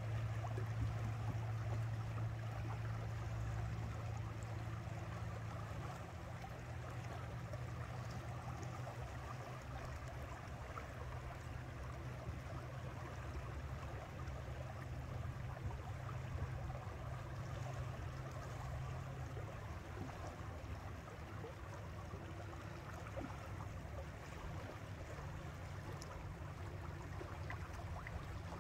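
Water rushing and gurgling past a boat's hull in a strong tidal current, over a steady low drone.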